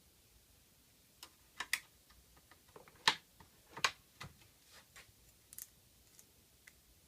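Irregular small clicks and taps of hand work with a metal hose clamp and tools while fitting it over a rubber stopper on an air compressor's unloader valve outlet. There are two louder clacks about three and four seconds in.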